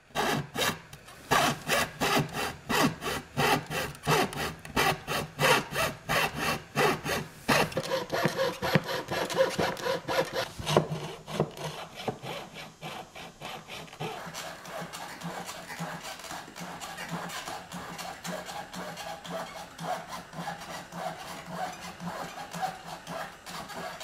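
Hand coping saw cutting a curve through particleboard, back-and-forth strokes about three a second. About halfway through, the strokes turn lighter and quieter.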